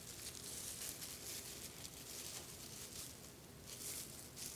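Faint rustling of a loose sterile plastic glove being pulled onto a hand.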